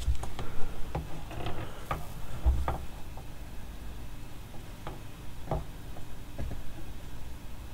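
Scattered light clicks and taps of a copper GPU cooler being turned, positioned and fitted onto a graphics card, most of them in the first three seconds, with a dull knock about two and a half seconds in.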